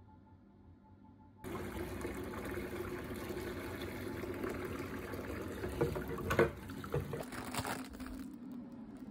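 Tap water running into a stainless steel sink full of plates and a spoon, starting suddenly about a second and a half in, with a few knocks of dishes near the middle. It cuts off near the end.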